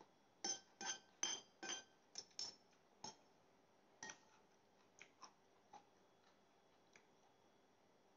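Metal fork and spoon clinking against a plate while eating. A quick run of sharp, ringing clinks comes in the first two and a half seconds, then scattered fainter clinks.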